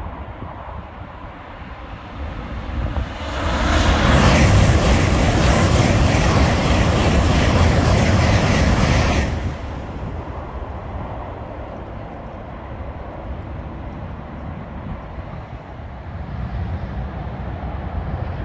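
Eurostar Class 374 (e320) high-speed train passing at over 170 mph: a rising rush about two seconds in, a loud rushing of air and wheels for about six seconds, then a quick fall-away. A steady hum of motorway traffic remains after it.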